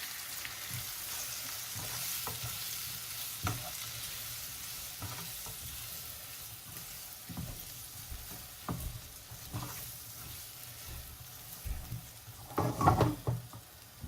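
Frozen mixed vegetables sizzling in butter in a frying pan, with a spatula knocking and scraping against the pan every second or so as they are stirred. A louder flurry of knocks comes near the end.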